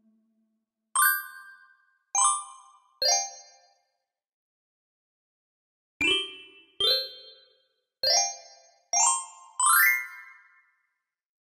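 Bell-like chime notes struck one at a time, each ringing out and fading. There are three notes falling in pitch, a pause of about two seconds, then five notes climbing in pitch.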